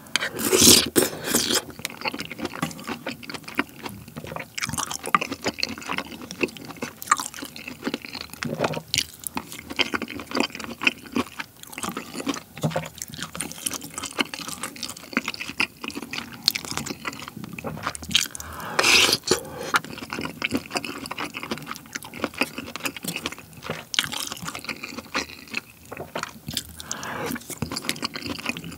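Close-miked eating of bacon in a cream sauce: wet chewing and slurping of the sauce, with many small irregular mouth clicks. There are louder slurps near the start and again about two-thirds of the way through.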